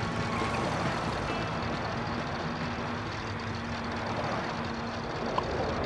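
Steady vehicle engine and traffic noise, an even rumble with a faint low hum.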